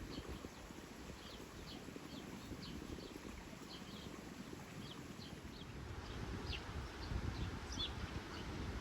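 Small birds chirping, short sharp calls repeating a few times a second, over a low outdoor rumble that grows louder near the end.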